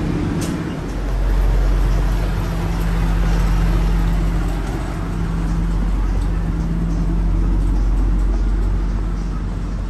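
Diesel railcar engine idling with a steady low hum while the train stands at the platform, with a short click about half a second in.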